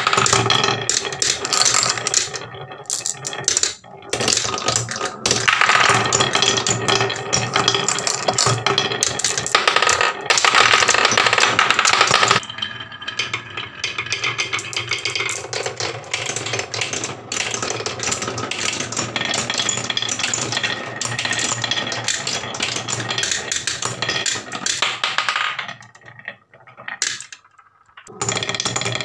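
Marbles rolling and rattling along wooden tracks and a wavy wooden slope. There is a dense run of quick clicks and clacks as they knock together and drop into wooden trays, which is busiest in the first half and thins out briefly near the end.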